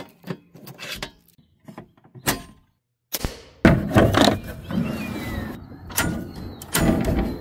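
Small metal clicks and jingles of keys working a brass padlock. After a short break come louder plastic snaps as an enclosure latch is unclipped and double-pole circuit breakers are switched off, a run of sharp clicks and handling noise.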